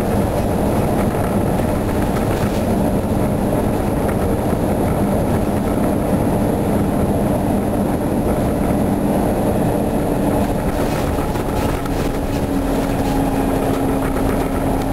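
Detroit Diesel 8V71 two-stroke V8 of a 1972 Flxible New Look bus running under way, heard inside the cab with steady road and body noise. The engine tone steps up in pitch a few seconds in and again near the end, and a few rattles and knocks come near the end.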